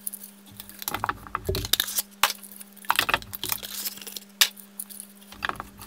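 Light, irregular clicks and rattles of small plastic computer parts and cables being handled, over a steady low hum.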